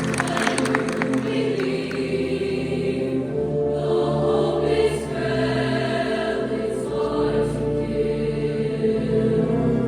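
A choir singing in harmony, holding long sustained chords, with a brief crisp rattle at the start.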